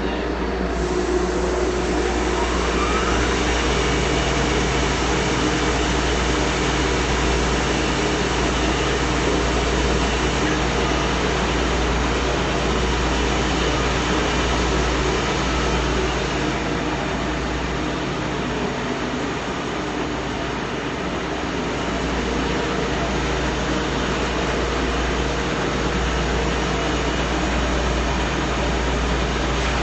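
Large shop belt sander with a 180-grit belt starting up: a rising whine over the first few seconds as it comes up to speed, then running steadily with a loud hum and rushing noise.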